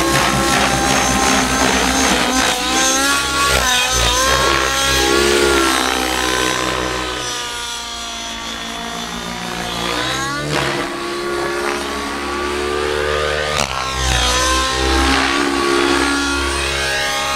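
O.S. 105 nitro engine with a Powerboost tuned pipe, running at flight power in a Velocity 90 RC helicopter overhead, its pitch rising and falling as the helicopter manoeuvres and passes by. The engine is still running a little rich.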